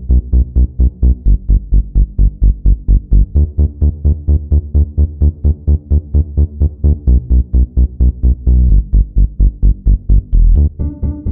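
Electronic background music with a fast, pumping bass pulse, about four beats a second; near the end it gives way to a held synth chord.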